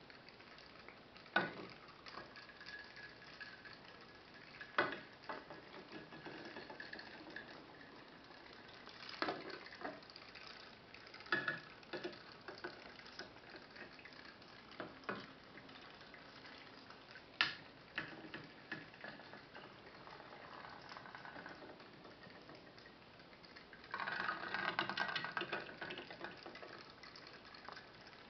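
Modified putt-putt boat's steam engine running on water, its quartz test-tube boiler feeding two exhaust tubes. It gives faint irregular pops and bubbling, with a louder stretch of sputtering bubbling lasting about two seconds near the end.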